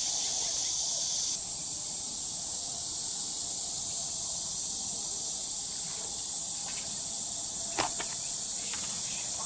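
Steady high-pitched chorus of summer insects, with one brief click about eight seconds in.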